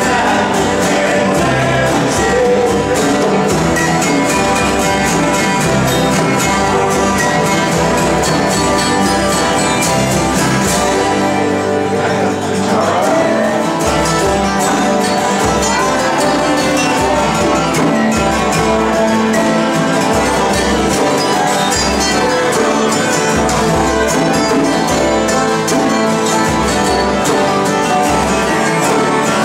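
Acoustic guitars strummed together in a country-style jam, with a man singing over them. About twelve seconds in, an edit jumps to another stretch of the same jam, guitars strumming on with a resonator guitar among them.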